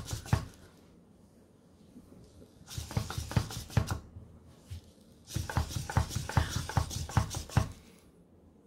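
Living AI EMO desktop robot stepping and turning on a tabletop: its feet and leg motors make three runs of rapid clicks and taps, the longest near the end.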